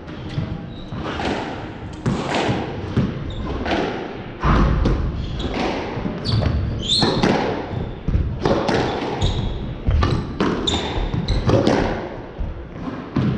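A squash rally: the ball struck by rackets and smacking off the court walls in repeated sharp impacts, with shoes squeaking on the wooden floor.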